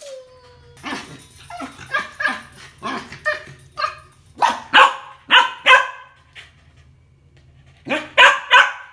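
Small white long-haired dog barking: a run of short barks that grow louder, a pause of about two seconds, then three loud barks near the end.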